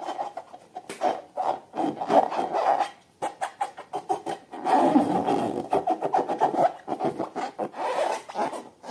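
Slime being kneaded and pressed by hand: dense runs of sticky clicks and squelches in patches, with a short pause about three seconds in.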